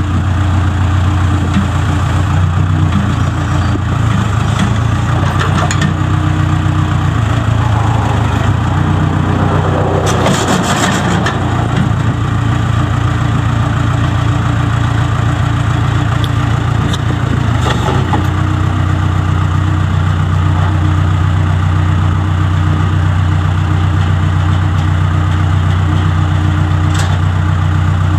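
Case 580K loader backhoe's diesel engine running steadily. Its note changes for a stretch in the middle, and there is a brief hissing noise about ten seconds in.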